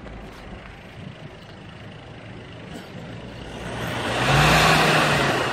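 An SUV engine running at idle is revved once about three seconds in: the exhaust rush at the tailpipe swells to a peak and eases off again. This is a free-rev exhaust smoke test.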